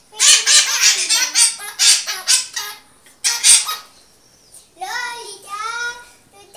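Green parrot singing in loud, raspy bursts for nearly three seconds, then once more briefly. Near the end comes a short sung phrase with a clear pitch.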